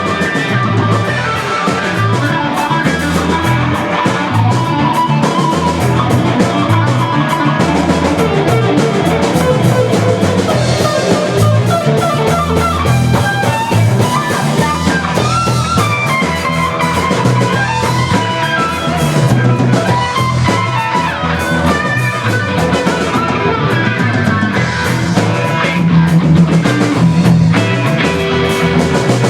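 Rock band playing an instrumental passage: electric guitar over bass and drums.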